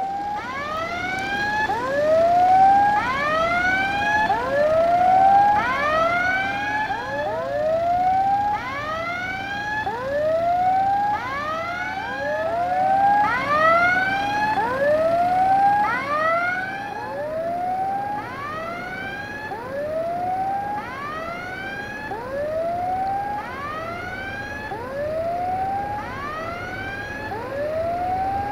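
Level crossing warning signal sounding: electronic tones that sweep up in pitch, repeating over and over, with more than one signal sounding out of step.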